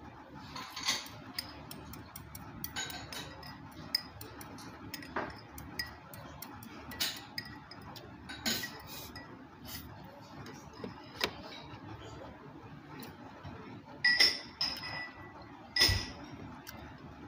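Tableware clinking on a tray: scattered light clicks of dishes and chopsticks, with two louder ringing clinks of crockery near the end.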